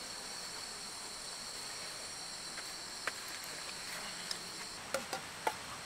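Insects singing in a steady, high-pitched chorus that stops about five seconds in, with a few light clicks near the end.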